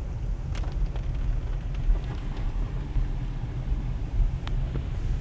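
Car driving slowly, its low engine and road rumble heard from inside the cabin, with a couple of faint ticks.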